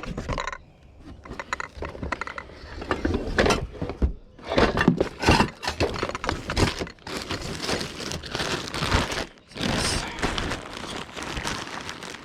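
Rummaging through a box of kitchenware and cushions: irregular knocks and clatters with rustling as items are lifted and moved around.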